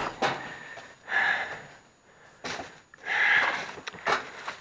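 Metal parts of a kitchen range being handled during disassembly. There are two short scraping slides and a few sharp clicks and knocks.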